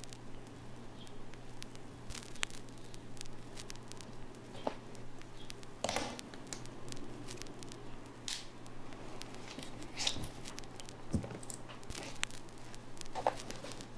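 Small mechanical keyboard parts being handled and worked on: scattered light clicks and a few sharper taps at irregular intervals, over a steady low hum.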